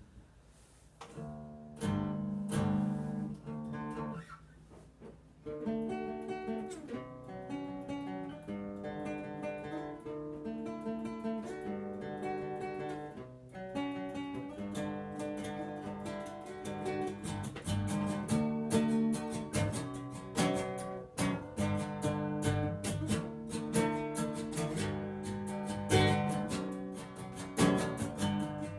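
Acoustic guitar playing an instrumental intro, plucked and strummed chords starting about a second in.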